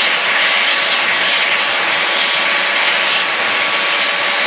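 Vacuum cleaner running through a hose, its brush attachment drawn over a dog's short coat, so the suction rushes and rubs and swells slightly with each stroke.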